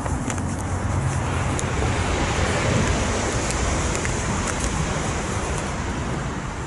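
Road traffic noise: a steady rush of passing vehicles that swells to a peak about three seconds in, then eases off.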